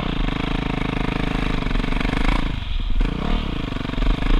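Motocross bike engine running as it is ridden on a sandy dirt track, its revs rising and falling. The throttle closes briefly about two and a half seconds in, then the engine picks up again.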